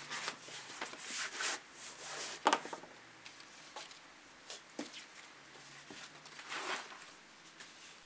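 A large sheet of leather being handled: rustling and flapping as it is unrolled and spread flat on a cutting mat. There is a sharp knock about two and a half seconds in.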